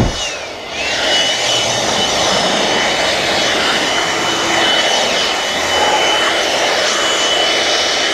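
A small high-speed motor running with a steady high whine over a rushing noise. Its pitch dips briefly about half a second in, as if loaded, then holds steady.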